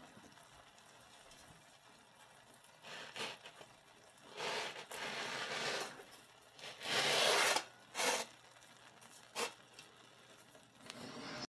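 A baked pizza being scraped and slid off a steel baking slab onto a metal pizza pan: several rough scraping noises, the longest and loudest about seven seconds in, followed by a couple of short knocks.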